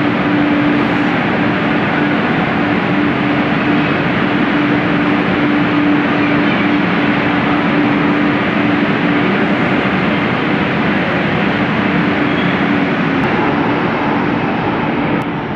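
Metro train running along a station platform: a steady loud rumble of wheels on rail with a steady hum that stops about thirteen seconds in.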